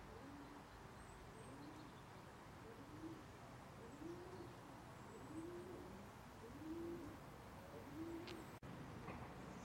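Faint, low bird coos, each rising and then falling in pitch, repeated about once a second and growing a little louder toward the end.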